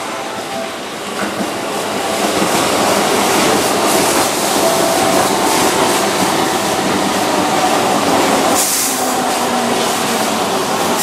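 Keihan 2600-series electric train set rolling past close by on a curve, a steady running noise of wheels and motors that grows louder about two seconds in, with faint thin squeal tones from the wheels on the curve. A short hiss comes near the end.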